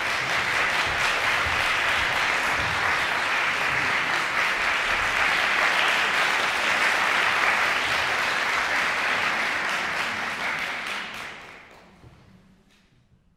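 Audience applause in a concert hall: dense, steady clapping that fades out near the end.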